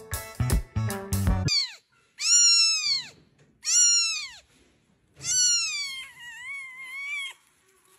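Music stops, then a cat meows three times. The first two meows are short and fall in pitch at the end; the third is long and wavering.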